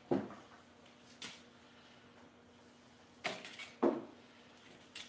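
A handful of short knocks and clatters, like parts or tools being picked up and set down on a work surface. The loudest come just after the start and just before the fourth second, with a quick cluster of clatters a little before it.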